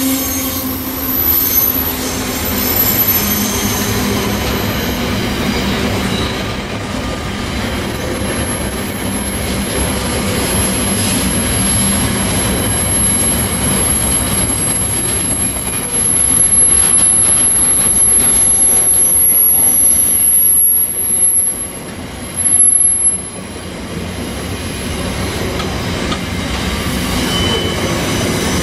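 Freight wagons of a mineral sands train rolling past, their wheels rumbling over the rails with a high, thin wheel squeal held through much of the passage. The squeal and the rumble grow louder for a few seconds past the middle.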